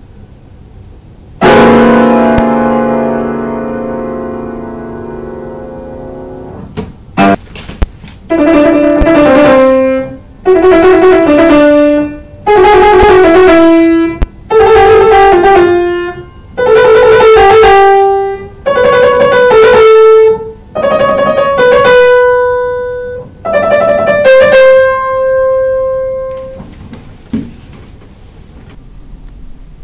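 Grand piano played solo. It opens with one loud chord left ringing and fading for several seconds. Then comes a string of short, similar phrases with brief pauses between them, each ending on a held note and each pitched a little higher than the one before; the last note is held and fades away.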